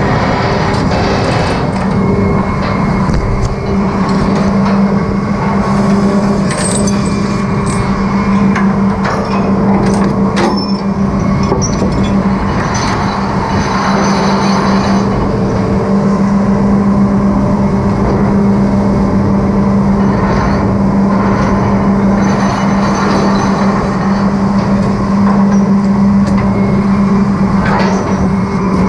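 Trawler's engine and deck machinery running with a steady low hum, mixed with the rush of the sea along the hull, while the trawl doors are handled at the gallows. A few sharp metallic clanks from the steel warps, chains and trawl door.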